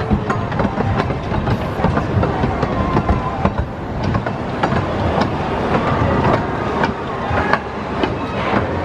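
Pleasure Beach Express miniature railway train running along its track, steady rumbling with wheels clicking over the rail joints.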